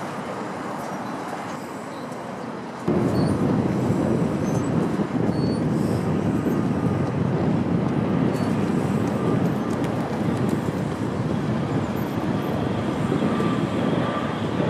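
Wind rumbling on the microphone outdoors: a steady, noisy low rumble that jumps louder about three seconds in.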